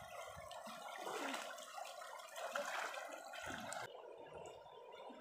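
Shallow stream water splashing and running around people wading in it; the splashing thins out about four seconds in.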